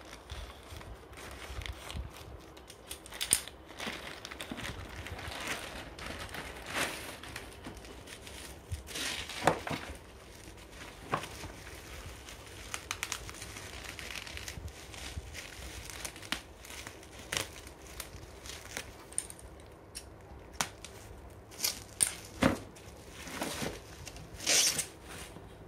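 Packaging being handled and opened, with irregular rustling and crinkling broken by sharp clicks and scrapes.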